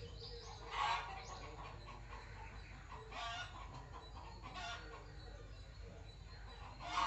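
Four short bird calls a second or two apart, the loudest about a second in and at the very end, over a low steady hum.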